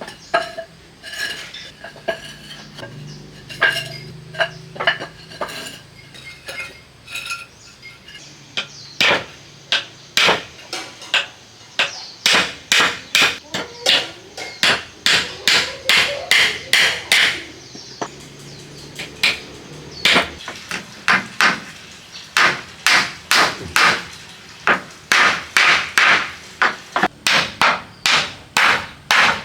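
Hammer strikes, repeated: a few lighter, ringing taps at first, then about eight seconds in a steady run of heavy blows at about two a second, as in driving nails or pegs into building timber.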